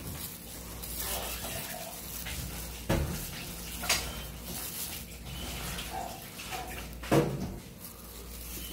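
Thin clear plastic bags crinkling and rustling as they are handled, with sharper crackles about three seconds in, about four seconds in, and a loudest one about seven seconds in.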